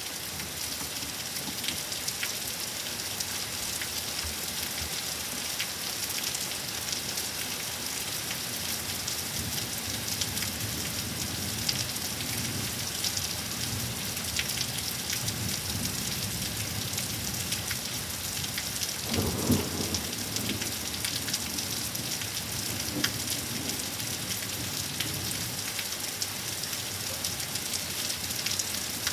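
Steady rain falling during a severe thunderstorm, with a low rumble of thunder about two-thirds of the way through.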